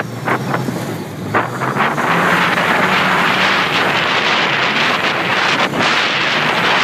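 Heavy wind buffeting on the microphone over the steady drone of an off-road vehicle's engine, heard while riding aboard it on the sand dunes. The wind noise grows fuller and steadier about a second and a half in.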